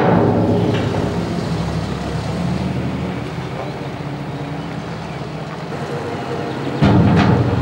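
Diesel engine of a farm loader running steadily as the machine moves with its big bucket, becoming suddenly louder near the end.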